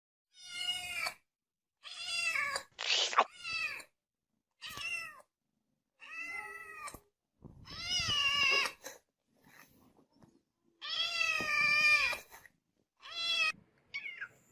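Kitten meowing over and over: about ten separate meows with silent gaps between them, two of them longer, drawn-out calls.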